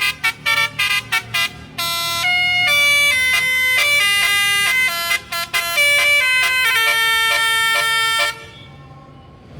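Bus telolet horn, an old-style basuri multi-tone air horn, playing a tune: a quick run of short toots, then longer notes stepping up and down in pitch, stopping a little over a second before the end.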